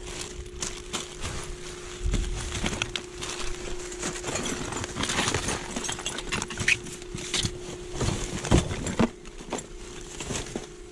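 Plastic garbage bags rustling and crinkling as gloved hands rummage through trash, with irregular knocks and clatters of hard items being shifted, over a faint steady hum.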